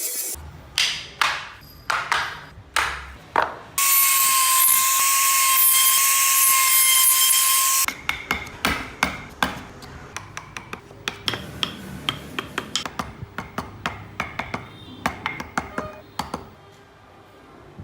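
Woodworking tools at work on wood: a handful of sharp strikes, then a power tool running steadily with a high whine for about four seconds, then a long run of quick light taps that stops shortly before the end.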